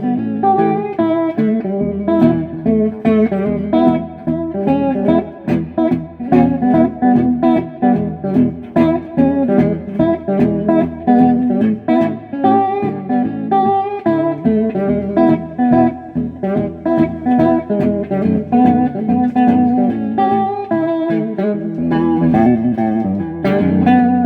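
Electric guitar played through a 1959 Magnatone 260A valve amp: a continuous run of picked notes and chords.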